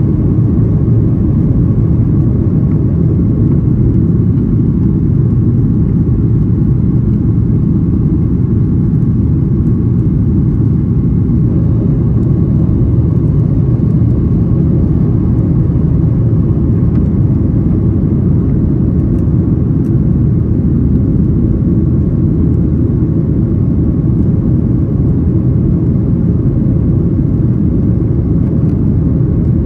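Boeing 737-800 cabin noise: a loud, steady low rumble from the CFM56 turbofan engines and the airflow over the fuselage, with a faint steady hum above it.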